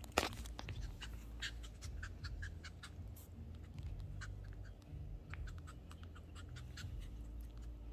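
Shih Tzu puppy mouthing and biting a toy ball, irregular light clicks and scratches of its teeth on the ball, with a sharper click just after the start.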